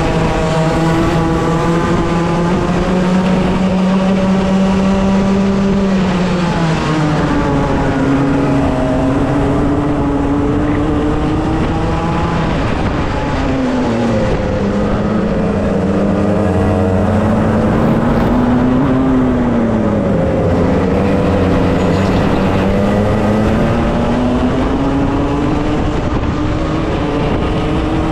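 Racing kart's two-stroke engine heard onboard at racing speed. Its pitch drops under braking into corners and climbs again on the straights, about three times, over steady wind and road noise.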